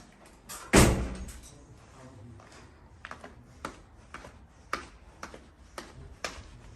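A single loud thump about a second in, then light clicking taps about twice a second, like footsteps in a small room.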